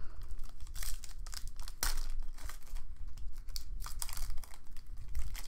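Foil trading-card pack wrapper crinkling and tearing as it is worked open by hand, in irregular crackles; the wrapper's side is sealed very tightly.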